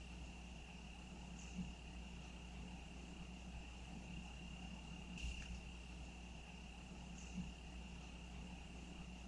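A cricket trilling steadily on one unbroken high note, with a faint low rumble underneath and a soft click about five seconds in.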